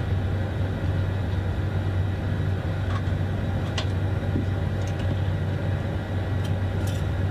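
Steady low drone of aircraft machinery noise with a strong even hum, and a few faint clicks about three to four seconds in and near the end.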